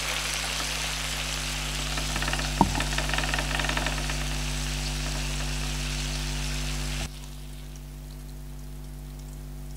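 Steak pieces sizzling in butter on a black griddle plate, with a sharp clack of metal tongs about two and a half seconds in. About seven seconds in the sizzle suddenly drops to a fainter level, over a steady low hum.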